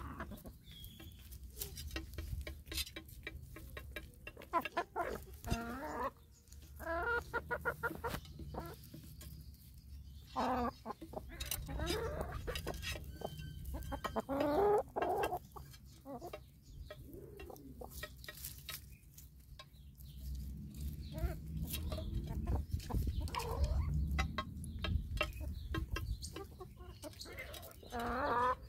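Hens clucking in short, scattered calls while they feed, over many quick clicks of beaks pecking at a plastic tray.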